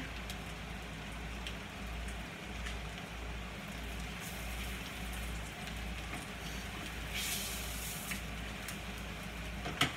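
A corn tortilla dipped in grease frying on a hot comal: a steady low sizzle over a low hum, with a brief louder hiss about seven seconds in.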